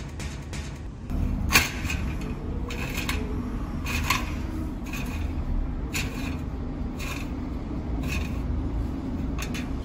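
Steel pipe test coupon handled on a steel workbench: scattered light metallic clicks and scrapes, about ten in all, over a steady low hum.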